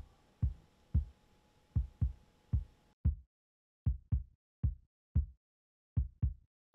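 Low, heavy thumps in a heartbeat-like rhythm, some coming in quick pairs, about one to two a second. A faint hiss and a thin steady tone under them cut off abruptly about three seconds in, leaving only the thumps.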